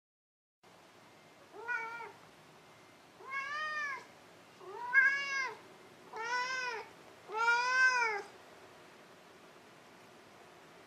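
A domestic cat meowing five times, about a second and a half apart, each meow rising then falling in pitch.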